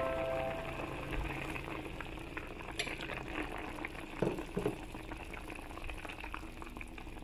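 Chicken feet boiling in a pan of broth: a steady bubbling with many small pops, and two brief low blips about four seconds in.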